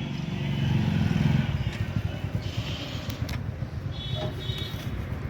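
A motor vehicle's engine running close by, swelling about a second in and then easing, with a few light clicks.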